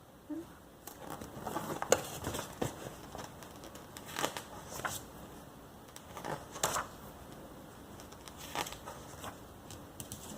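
Magazine pages rustling and crinkling as they are handled and turned, in short scattered bursts.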